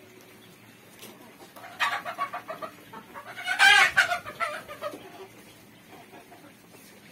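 A brood of 30-day-old quail calling: a burst of rapid repeated calls about two seconds in, then a louder burst a second and a half later that trails off.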